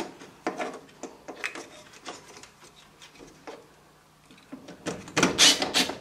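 Small clicks and knocks of a metal nut driver and screws against the furnace's sheet-metal cabinet and the plastic pressure switch. About five seconds in, a run of loud scraping strokes follows as a quarter-inch nut driver turns a screw into the pressure switch's mount.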